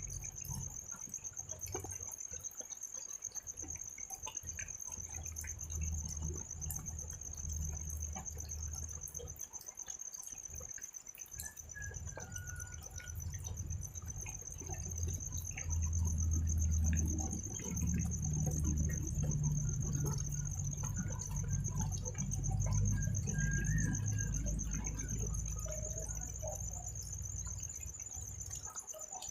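A cricket trilling steadily in a high, fast-pulsing tone over light drizzle, with scattered small drips. A low rumble swells and fades underneath, loudest in the second half.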